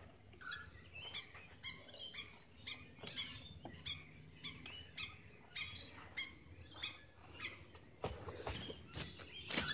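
Birds chirping and calling over and over, with no engine running. Rustling starts near the end, followed by one loud knock.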